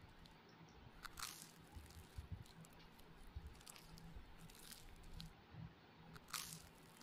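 Quiet, close-up sounds of eating rice and fish curry by hand: fingers squishing and mixing rice on a steel plate, and chewing. A few sharp clicks stand out, the two loudest about a second in and near the end.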